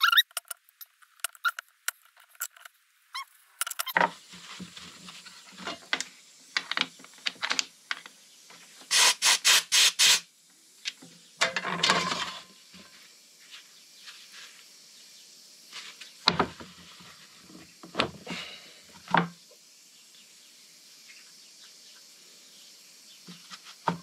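Bench work on a motorcycle brake caliper: clicks and knocks of parts being handled, with a quick run of five short, loud hissing blasts about nine seconds in and a longer blast near twelve seconds.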